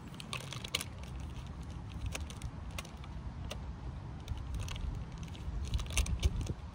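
Low uneven rumble with scattered light clicks and rustles, the clicks thickest and loudest near the end.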